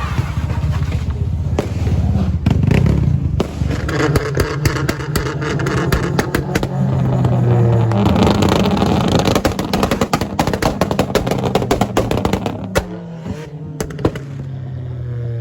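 Car engine revving, with a rapid string of sharp crackling pops from about three seconds in, and the revs dropping away again near the end.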